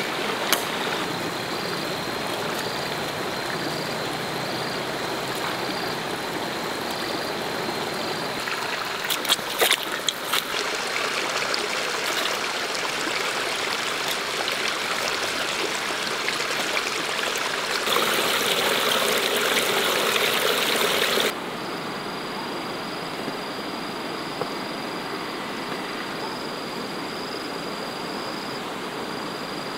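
Steady rushing hiss of falling water, with a high thin insect drone in the background. A few sharp knocks come about nine to ten seconds in. The hiss grows louder for a few seconds and cuts off suddenly about 21 seconds in.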